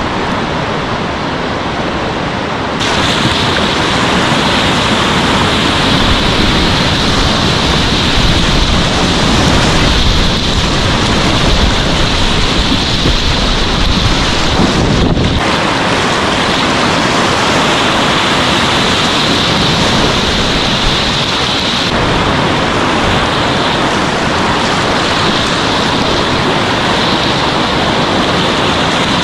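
Whitewater rapid rushing loudly and continuously, an even wash of water noise; its character changes abruptly about three seconds in and again about halfway through.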